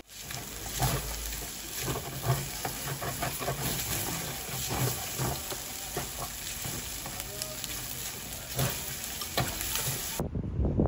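Fried rice sizzling in a stainless steel pan on a tabletop gas burner while a metal spoon stirs it, scraping and clicking against the pan. Near the end it cuts suddenly to wind on the microphone.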